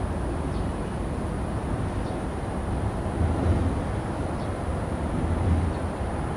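Steady low outdoor rumble by open water, swelling twice in the middle, around three and a half and five and a half seconds in.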